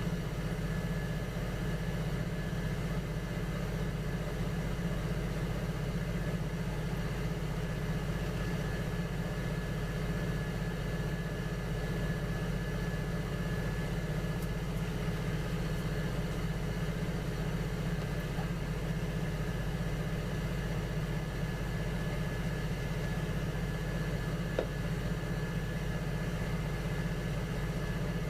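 Electric potter's wheel motor running at a steady speed: a constant hum with a faint high whine, unchanging throughout, and one small click near the end.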